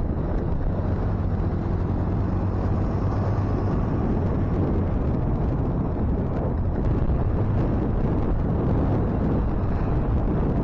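Motorcycle riding along a road, heard from the rider's own bike: a steady low engine hum buried under heavy wind rumble on the microphone.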